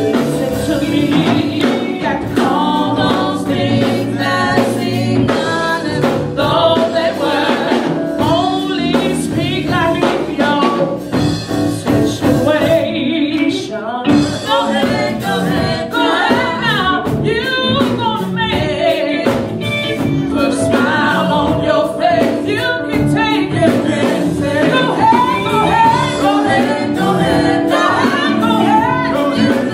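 A gospel song performed live: a female lead singer sings with backing singers, over a steady instrumental accompaniment.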